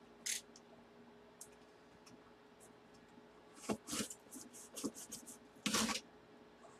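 Cardboard shipping box and its packing tape being handled: a few short scrapes and crinkles starting about three and a half seconds in, the loudest just before the end, over a faint steady hum.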